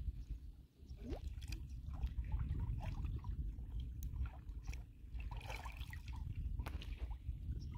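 Water sloshing and splashing around the legs of people wading waist-deep through a river, with irregular small splashes and drips over a steady low rumble.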